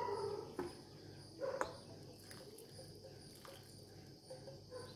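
Wooden spatula knocking and scraping in a steel pan of dry rava mix, the loudest knocks at the very start and about a second and a half in. Behind it runs a faint steady high whine with regular faint high chirps.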